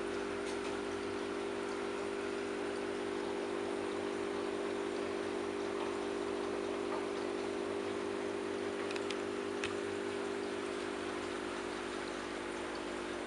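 Steady electrical hum with an even hiss over it, from aquarium equipment running. There are a couple of faint clicks about nine and ten seconds in.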